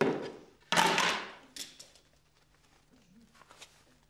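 A man blowing out breath through pursed lips: two noisy puffs close together near the start, then a fainter one.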